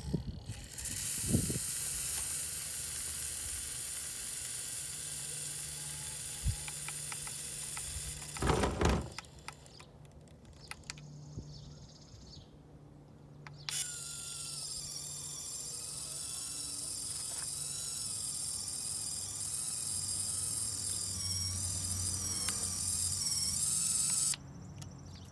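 Servo-driven winch on a radio-controlled crawler reeling in its line, the servo whining steadily under load. A knock comes shortly before it pauses about ten seconds in; it then runs again for about ten seconds with a slightly wavering pitch and cuts off suddenly near the end.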